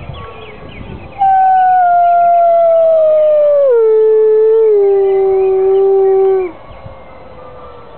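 Wolves howling, set off by ringing church bells. One wolf's long howl starts about a second in, holds, then drops in pitch in two steps and stops a little over a second before the end, while other wolves howl more faintly behind it.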